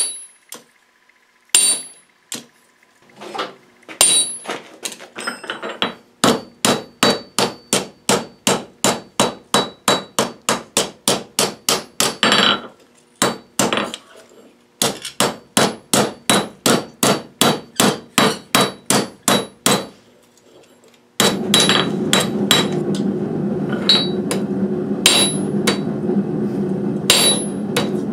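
Hand hammer striking a red-hot steel knife blade on an anvil, each blow ringing high off the anvil. A few scattered blows give way to steady runs of about three blows a second, with short pauses between runs. A steady rushing noise joins about three-quarters of the way through, under the continuing blows.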